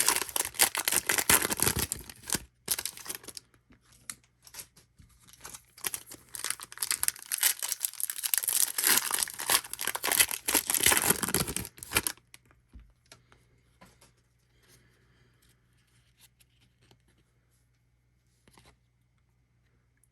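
Foil wrapper of a baseball card pack being torn open and crinkled, in two loud spells of a few seconds each; afterwards only faint rustles and light ticks of handling.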